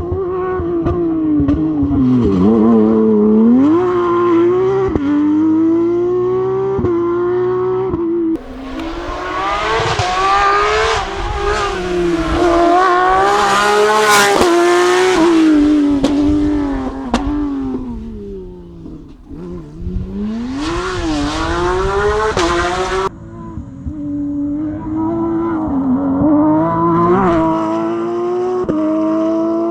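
Porsche 911 GT3 Cup flat-six racing engine at full throttle on a rally stage, revving hard up through the gears with quick shifts and falling away under braking and downshifts before climbing again. The sound cuts abruptly twice, about eight seconds in and near the two-thirds mark, as separate runs are joined together.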